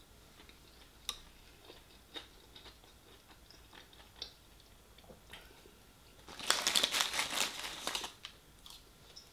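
A paper takeaway bag rustling and crinkling loudly for about two seconds, some six seconds in, as a hand rummages in it. Before that, only a few faint clicks of chewing.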